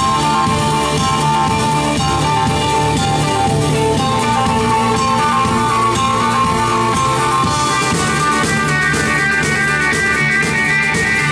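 Live rock band playing: electric guitars and bass guitar with sustained ringing notes over a drum kit. About two-thirds of the way through the sound grows brighter and fuller, building up.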